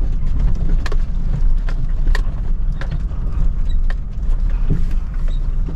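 2007 Chevy Silverado 1500 pickup driving slowly over a rough dirt trail, heard from inside the cab: a steady low rumble of engine and tyres, with irregular knocks and rattles as the truck bounces over bumps.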